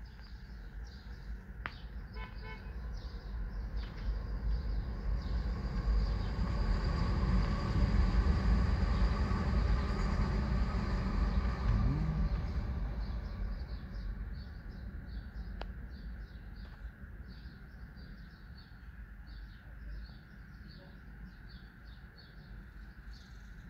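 Street traffic: a passing vehicle swells to a broad rumble and fades away over about ten seconds. After that, birds chirp over a low street hum.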